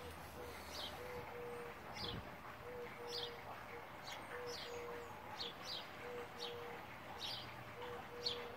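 Birds chirping outdoors: short, high, falling chirps repeated about once or twice a second, over a lower, steady note that keeps coming back in a regular rhythm.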